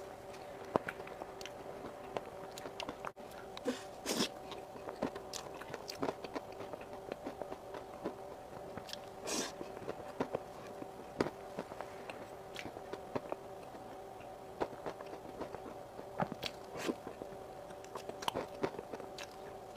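Close-up mouth sounds of someone eating whipped cream cake: irregular wet smacks and clicks of chewing and biting. A faint steady hum sits underneath.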